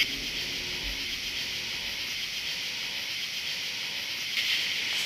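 Steady high-pitched hiss, a little louder from about four seconds in.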